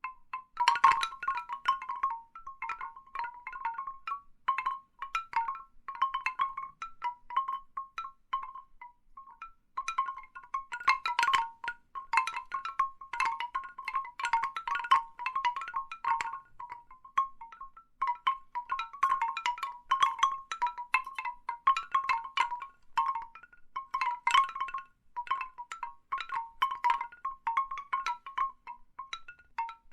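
Large bamboo wind chimes knocking together in irregular clusters of short, hollow tones around one pitch, with a couple of brief lulls.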